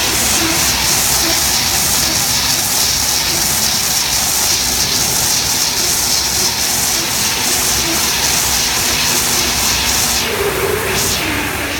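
Double-shaft auto rewinder running: steady loud machine noise with a strong high hiss. About ten seconds in the hiss drops away and the sound changes.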